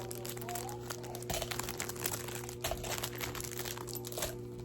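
Plastic wrapper of a small mochi squishy toy crinkling as it is opened and handled, in quick, irregular crackles.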